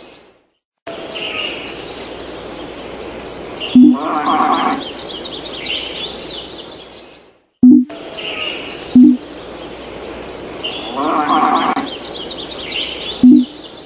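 Birds chirping and twittering over a steady hiss of background noise, with a few short loud blips. The same six-second stretch of chirps plays twice.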